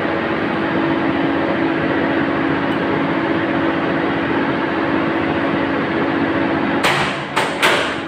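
Automatic transfer switch cabinet with a steady electrical hum and a held droning tone, broken about seven seconds in by two loud clacks half a second apart: the switch transferring back to normal supply.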